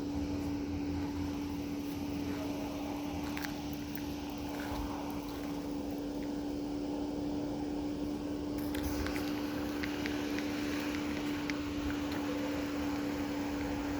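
A machine's steady hum at one constant pitch, with a low rumble underneath and a few faint ticks.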